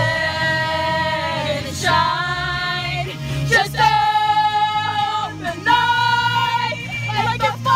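Pop song with female vocals singing long held notes over a steady bass, with a group of young women singing along loudly.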